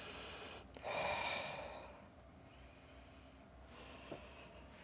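A man sniffing in deeply through his nose to smell a drink held under it. There is one strong, drawn-out sniff about a second in and a fainter one near the end.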